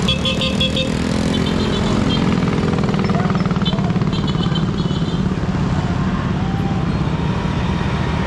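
Motorcycle engines running at low speed close by, a steady hum, with short clusters of high chirping three or four times in the first five seconds.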